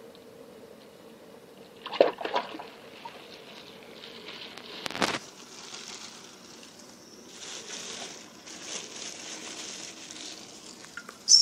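Aquarium water splashing and sloshing as a piranha is wrestled out of it, with two sharp splashes about two and five seconds in and a stretch of sloshing and dribbling after, ending in a short sharp knock.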